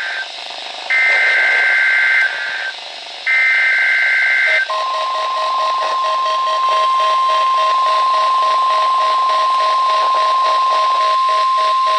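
NOAA Weather Radio weekly test heard over weather-radio receivers. First come the last two bursts of the SAME digital data header, short harsh data tones about a second long each. Then, about four and a half seconds in, the steady 1050 Hz warning alarm tone starts and holds, with a lower beep pulsing alongside it.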